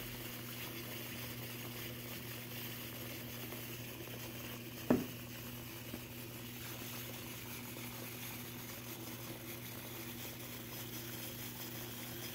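Liquid nitrogen boiling gently in a metal pan around a glass beaker, a faint steady hiss over a low steady hum, with one short knock about five seconds in.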